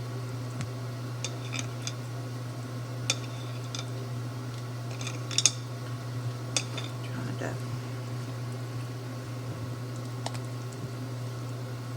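Light, scattered clinks and taps of a utensil against a bowl, a few a second at most, with the loudest cluster about five seconds in, over a steady low hum.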